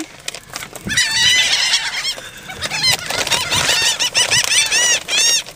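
A flock of seagulls screaming: many short, high, arching squeals overlapping one another. The calls thin out briefly partway through and crowd together most densely near the end.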